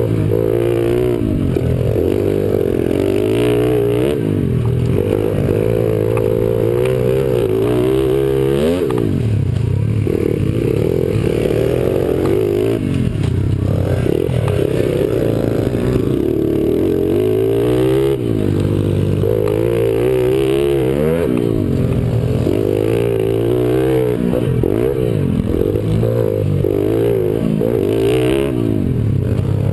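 Honda CRF50 mini dirt bike's small single-cylinder four-stroke engine heard from on board while riding, revving up and easing off again and again.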